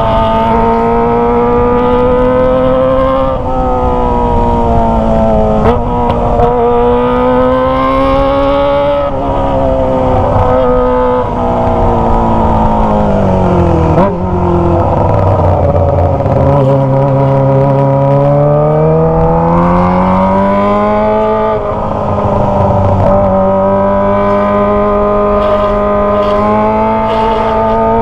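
Kawasaki ZX25R's inline-four engine through a Toce aftermarket exhaust, running loud with its pitch climbing and dropping back several times, falling to a low stretch around the middle, then climbing again and holding fairly steady near the end.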